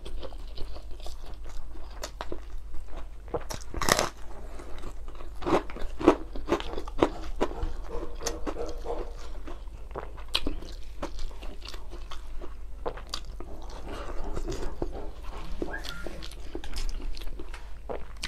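A man chewing and smacking a mouthful of rice eaten by hand: irregular wet mouth clicks and lip smacks, with a sharper click about 4 seconds in.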